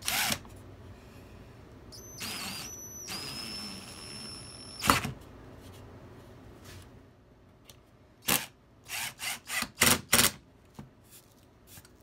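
DeWalt cordless drill running in two short runs, boring pilot holes into the wooden frame, with a steady whine that ends in a sharp click. A quick series of knocks follows later.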